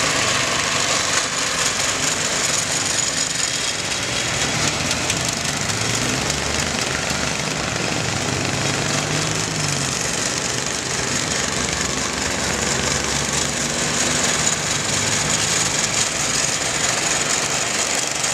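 Gardener's motor-driven mowing machine running steadily with a loud, rattling clatter, its engine pitch rising and dipping slightly in the middle.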